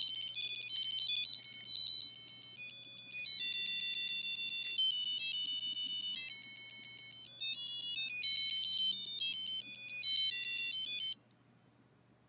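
A micro:bit playing a techno-pop tune as high-pitched, buzzy electronic beeps, a quick melody of changing notes. It cuts off suddenly near the end.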